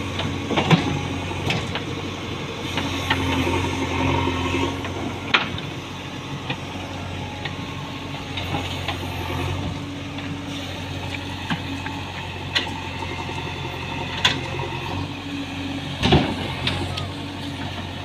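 JCB 3DX backhoe loader's diesel engine running steadily as the backhoe bucket digs through earth and stones, its note changing now and then. A few sharp clanks and knocks of the bucket and boom break through, the loudest near the end.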